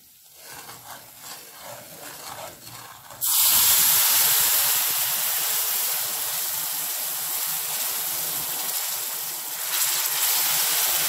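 Milk poured into moong dal roasted in hot ghee: a faint sizzle, then about three seconds in a sudden loud hiss as the milk hits the hot ghee and foams up. The hissing sizzle holds steady and grows louder again near the end as more milk goes in.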